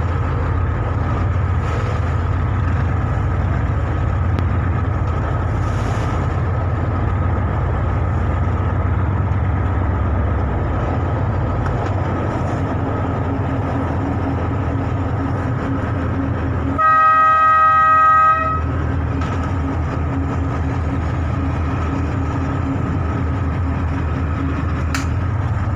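A small launch boat's engine running with a steady low drone. About two-thirds of the way through comes a single horn blast of about a second and a half, the loudest sound.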